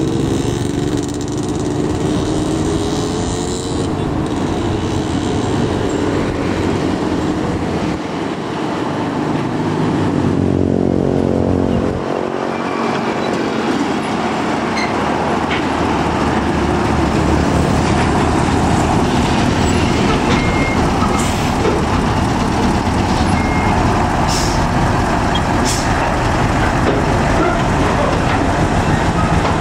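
Mitsubishi Fuso tractor unit's diesel engine pulling a container trailer away slowly and passing close by, the engine note rising as it picks up speed. A few short hisses in the second half.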